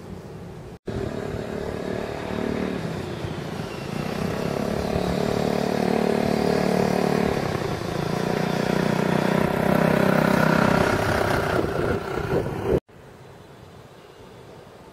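A motor vehicle's engine running, growing louder toward the middle and then cut off abruptly near the end.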